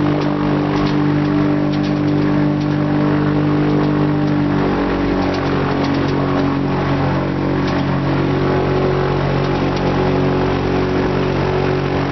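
Ultralight aircraft's engine and propeller running steadily while taxiing on the ground; the engine speed steps down about five seconds in and holds lower.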